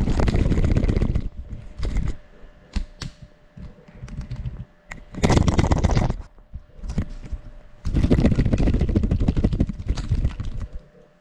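Small FPV drone carrying a GoPro, flying close around a person: loud bursts of wind buffeting and crackle from its propellers on the onboard microphone, three long ones with scattered smaller ones between, over a faint steady whine.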